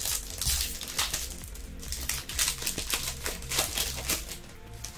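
Foil wrapper of a Topps Chrome trading-card pack being torn open and crinkled by hand, a rapid series of crackles. Background music plays underneath.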